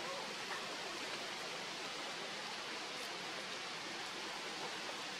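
Steady, even hiss of outdoor background noise, with no distinct event standing out.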